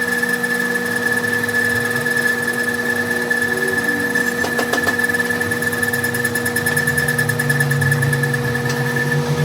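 A machine running steadily with an even hum and a few brief clicks near the middle.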